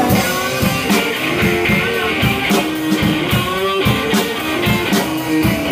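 Live rock band playing an instrumental passage: electric guitar riffing over a drum kit's steady beat.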